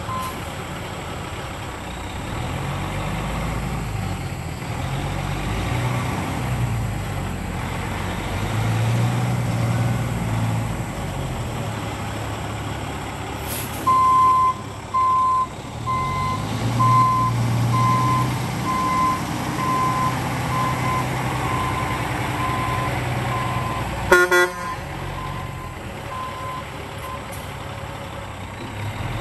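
Cat C13 diesel of a 2007 Freightliner tractor running as the truck drives and manoeuvres, its note rising and falling with the throttle. From about halfway through, a reversing alarm beeps steadily for some thirteen seconds, and a short, loud toot sounds near the end.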